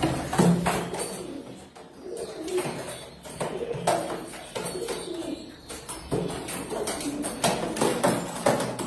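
Domestic pigeons cooing in repeated low, wavering calls, with a few sharp taps among them.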